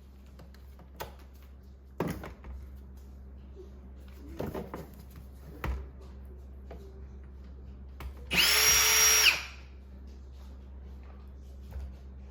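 A power driver spinning briefly, about a second of motor whine, as it backs out a short Torx screw from the dishwasher's control panel. Before it come a few clicks and knocks of the bit and screws being handled.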